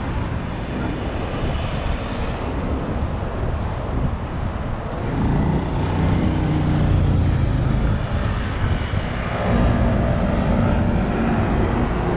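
Busy city road traffic: cars and heavier vehicles passing, with a louder engine hum building about five seconds in and again near ten seconds.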